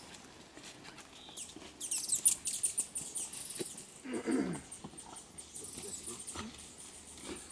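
Dog making a short, low growl about four seconds in. Earlier, about two seconds in, there is a brief burst of high, ringing chirps.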